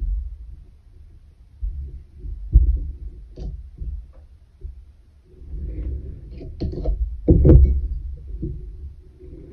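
Handling sounds of weaving on a wooden pin loom: a long weaving needle pushed through the yarn strands and yarn drawn through. Soft rustling comes with low thumps and knocks of hands and needle against the frame, the loudest about two and a half and seven and a half seconds in.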